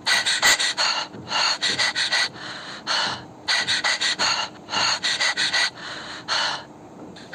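Rapid, heavy panting: runs of quick, hissy breaths broken by short pauses, the sound of a small animal worn out and out of breath.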